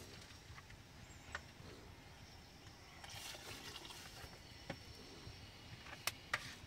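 Quiet cooking at an open wood fire: a faint background with a few scattered sharp clicks, two close together near the end being the loudest.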